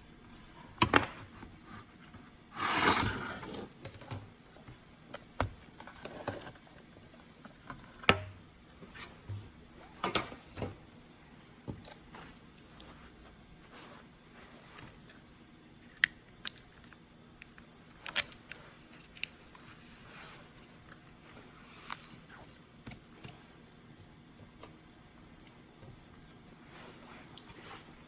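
Scattered clicks, taps and scrapes of hands and tools working on a Lenovo Edge 15 laptop during a RAM upgrade, with one longer scraping rustle about three seconds in.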